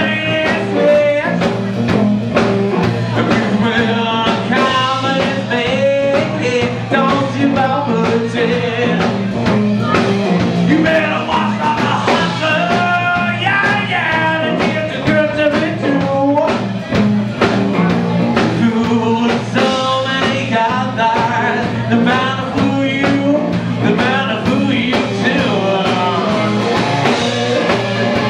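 Live blues-rock band: amplified harmonica wailing over electric guitar, bass and a steady drum beat.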